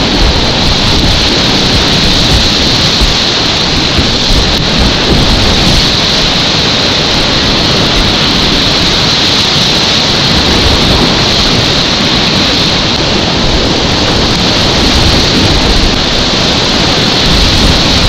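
Whitewater rapids of a fast alpine river rushing loud and steady around a kayak, heard close to the water with splashes hitting the camera, and a low rumble running under the hiss of the churning water.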